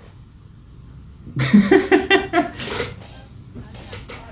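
An animal's voice: a quick run of short calls, about a second and a half long, starting about a second and a half in.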